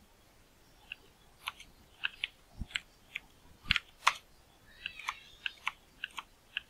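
Computer keyboard keystrokes: about fifteen separate key clicks at an irregular pace, some in quick pairs, starting about a second in, with a couple of heavier thuds among them.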